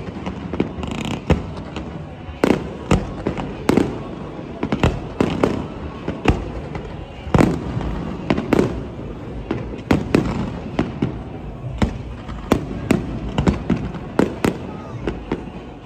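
Aerial fireworks shells bursting in a rapid, irregular series of sharp bangs, a few a second throughout, over a continuous low rumble of launches and crackle.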